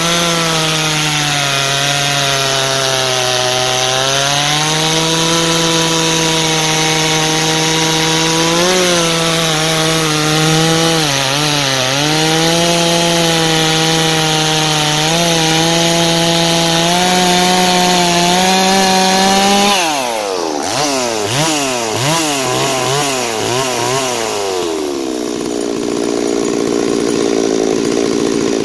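Farmertec Holzfforma G660 two-stroke chainsaw with a 36-inch bar cutting at full throttle through a big, dry hardwood log, its engine pitch held down by the load and dipping and recovering as the chain bites. About twenty seconds in the load comes off and the engine revs freely, its pitch wavering, then runs at a steady higher pitch out of the wood.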